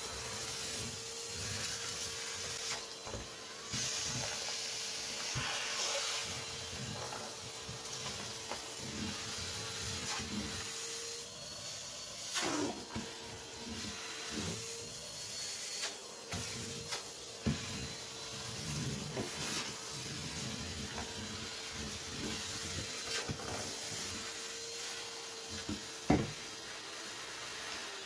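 Canister vacuum cleaner running on carpet, a steady whine over rushing air. The nozzle and wand knock and rattle now and then, with one sharp knock near the end.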